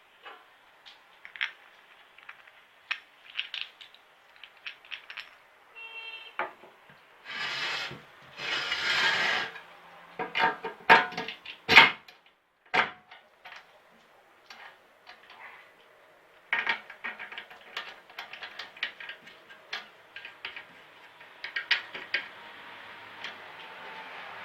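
Workshop handling noises from building a sanding drum: scattered clicks and knocks of tools and parts being set down and fitted, with two short scraping bursts about seven and nine seconds in.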